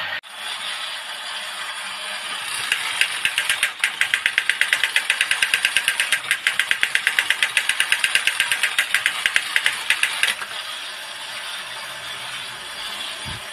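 Battery-powered 1960s Horikawa tin toy robot running: a small electric motor whirring with a rapid, even clatter of gears and tin that stops about three-quarters through, leaving the motor whirring more quietly.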